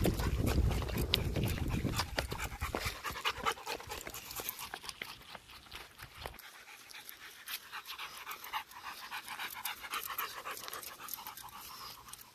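Rottweiler panting, with scattered sharp clicks throughout. A low rumble is loudest in the first two seconds and cuts off suddenly about six seconds in.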